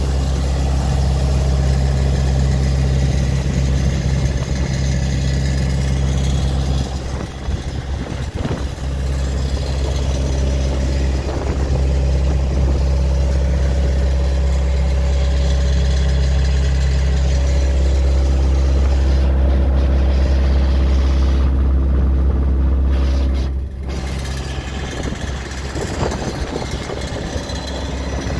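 2008 Neuson 50Z3 RD mini excavator's diesel engine running, a steady low drone that drops off briefly twice.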